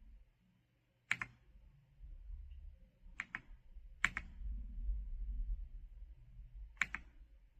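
Single keys pressed on a mechanical keyboard: a few sharp clacks spaced a second or more apart, one of them a quick double. A low rumble runs underneath through the middle.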